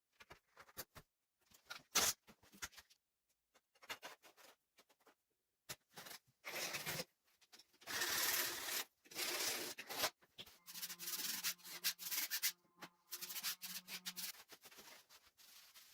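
Irregular rubbing and scraping strokes on a hard building surface, thickest around the middle, with a steady low hum starting and stopping over a few seconds near the end.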